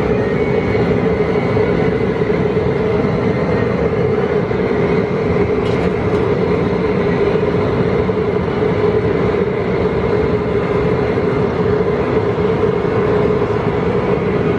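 Outdoor propane cooker burner running at full flame under the boil pot: a loud, steady roar with a low hum in it.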